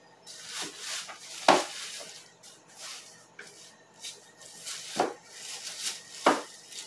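Frozen sacolés, ice pops in plastic bags, being handled in a freezer: plastic rustling and hard frozen pops clacking against each other and the shelves, with a few sharper knocks, the loudest about a second and a half in.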